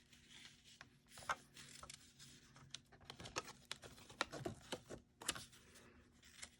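Faint rustling and scattered light taps of paper pieces being handled and laid on a work surface.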